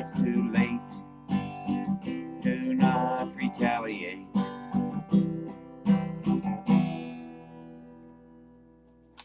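Acoustic guitar strummed to close the song, about two strokes a second, then a final chord left to ring and fade out over the last two seconds.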